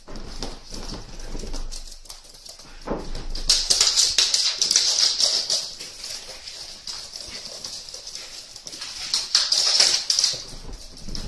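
Siberian husky puppies and an adult husky scampering on a hardwood floor, their claws clicking rapidly, busiest a few seconds in and again near the end.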